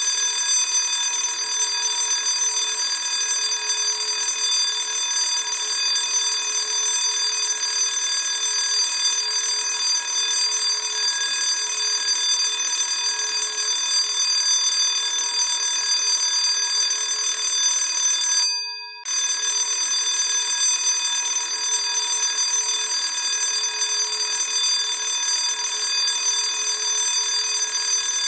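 School bell ringing loud and steady. Just before 19 seconds in it dies away, goes silent for a moment, then starts ringing again.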